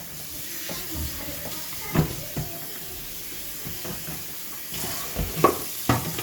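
Cold water running over blanched spinach, a steady hiss, with a few short knocks of kitchenware.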